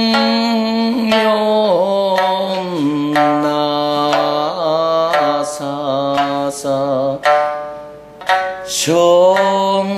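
Okinawan classical song sung to sanshin accompaniment: a voice holding long, drawn-out notes that slide and bend in pitch, over sharp plucked sanshin strokes. Near the end the singing drops away briefly, then comes back in on a fresh held note.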